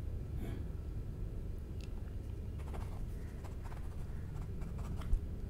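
Quiet room tone with a steady low hum, faint rustling and small clicks, and one soft low thump about five seconds in.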